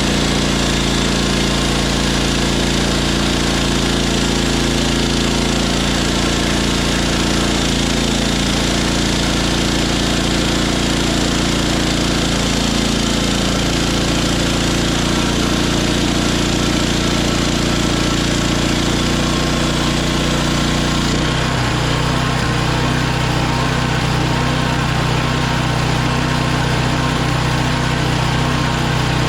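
Hudson HFE30 portable bandsaw mill running steadily, its small engine driving the band blade. About three-quarters of the way through the sound changes: the higher hiss drops away and the engine note shifts.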